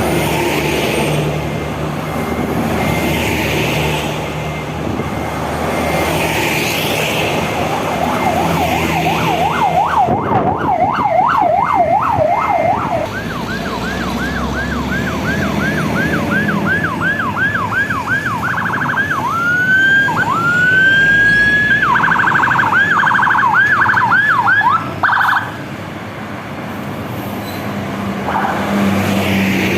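Escort vehicle's electronic siren switching between fast up-and-down yelps and rising whoops, starting about a quarter of the way in and cutting off abruptly with several seconds to go, over steady traffic noise from the passing convoy.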